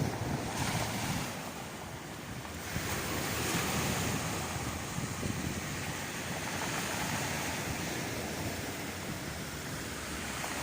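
Waves washing in and out over a stony shore, the stones rattling in the moving water, in slow surges.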